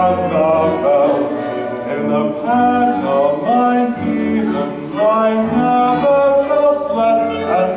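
Musical-theatre song: singing with instrumental accompaniment, a series of held notes.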